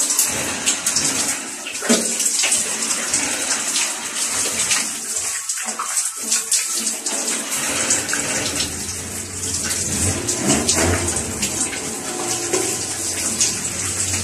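Overhead shower spraying water that splashes over a person's head and body and onto the floor: a steady hiss broken by uneven splashes. A low hum comes in about halfway through.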